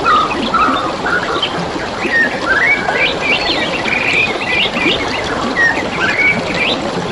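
Several wild birds chirping and whistling in quick short phrases over the steady trickle of a flowing stream.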